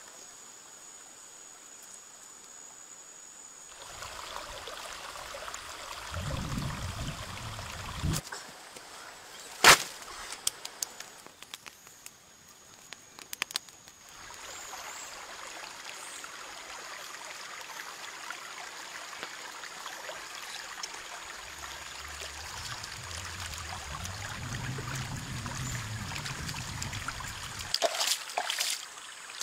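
Water trickling and splashing over rocks, with one sharp knock about ten seconds in.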